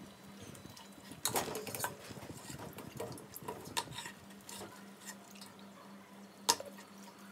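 Seasoned whole rabbit carcass being squeezed and rubbed in a pot of marinade in a stainless steel sink: wet sloshing and dripping, with light clinks against the pot. A sharp knock about six and a half seconds in is the loudest sound, over a faint steady hum.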